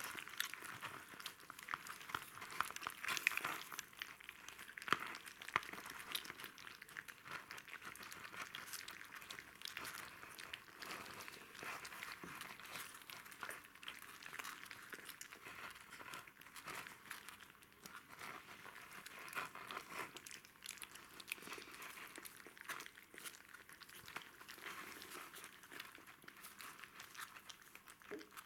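Two month-old Jack Russell Terrier puppies eating cottage cheese from a plastic bowl. Their mouths make a dense run of small, irregular clicks and smacks, with a few louder ones a few seconds in.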